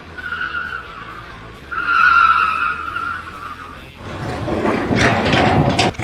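A high squeal starts faintly, swells strongly about two seconds in and holds for over a second, falling slightly in pitch. Louder rough, noisy rumbling with a few sharp knocks follows near the end.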